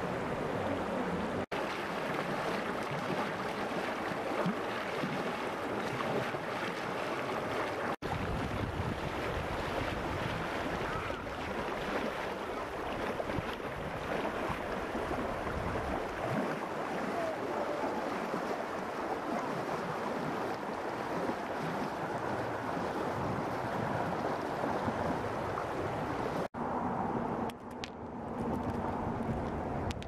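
Shallow mountain river rushing steadily over gravel and stones. Near the end the rush turns duller.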